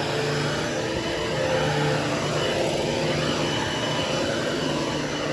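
Hoover Hushtone 13-inch upright vacuum cleaner running steadily on carpet, an even motor hum that does not change.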